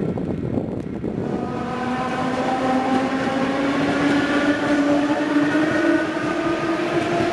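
Suburban electric multiple-unit train running past along the platform: a rumble of wheels on track, with a whine that sets in about a second and a half in and rises slowly in pitch.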